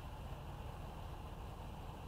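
Steady outdoor background noise: a low rumble with an even hiss over it, with no distinct knock or voice standing out.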